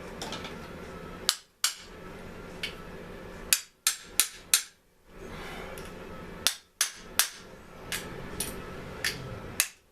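A series of sharp, irregularly spaced knocks and clicks from hand tools tapping and setting down on the Mantis tiller's parts during reassembly.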